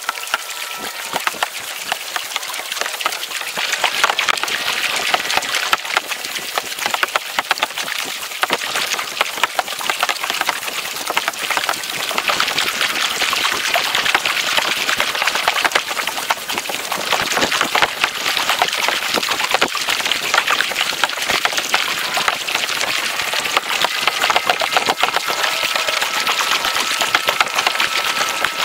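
Lake water splashing and crackling against a plastic kayak's hull and paddle as it is paddled along, a dense, steady crackle with no pauses.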